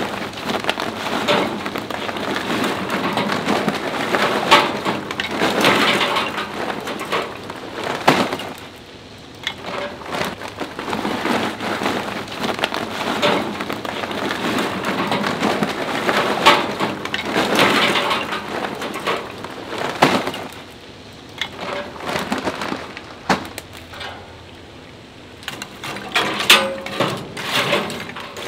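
Charcoal pouring from a paper bag into a steel mesh firebox basket, a dense rattling clatter of pieces tumbling onto the pile. It comes in two long pours with short lulls between, and near the end a few separate knocks as a metal tool pushes the coals around.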